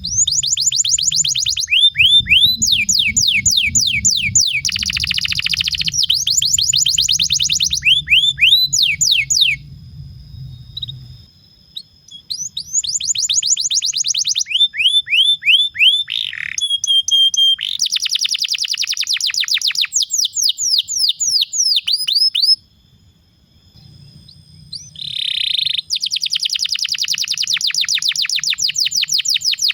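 Domestic canary singing long rolling trills, fast runs of sharply down-sweeping notes, in several long phrases broken by brief pauses.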